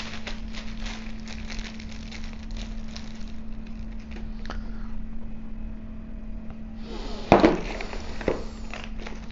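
Hands handling small telescope accessories and rummaging in a cardboard box: light clicks and crinkling of packaging, with a louder rustle about seven seconds in, over a steady low hum.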